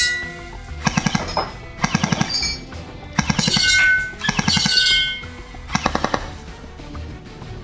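Tokyo Marui H&K USP electric airsoft pistol firing short full-auto bursts, about five of them, each a rapid clatter of shots from its electric gearbox. Background music plays underneath.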